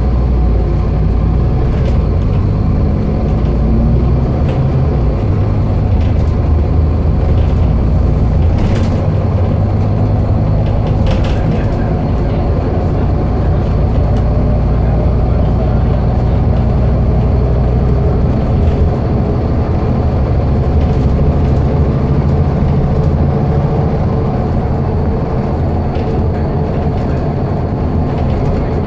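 Scania N230UD Enviro400 double-decker bus under way, heard from inside the passenger saloon: its five-cylinder diesel engine runs steadily under load with road noise. A few brief rattles come through near the middle.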